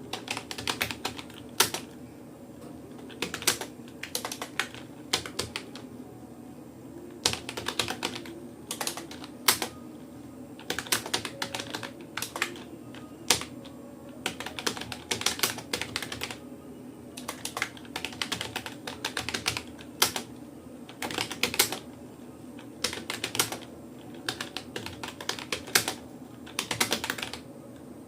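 Typing on a Rapoo computer keyboard: quick keystrokes in irregular runs, broken by short pauses.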